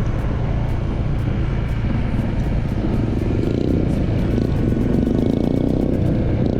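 Motorcycle engine running steadily under way, a continuous low drone with no break.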